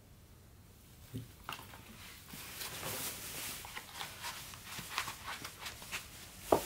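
Rustling, scuffing and light taps of a pair of shoes being handled and stepped into on a floor mat. It is near quiet for about a second, and there is one sharp tap near the end.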